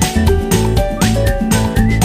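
Upbeat background music with a steady beat of about two strokes a second, a bouncy bass line and short sliding high notes.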